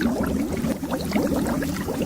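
Bubbles rising under water in a steady stream, many small bubbles in quick succession, each giving a short blip that rises in pitch.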